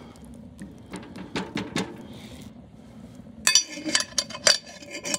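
A spatula stirring and knocking in a cast-iron Dutch oven of stew. Then, from about three and a half seconds in, several loud, ringing metallic clanks as the heavy cast-iron lid is set back on the pot.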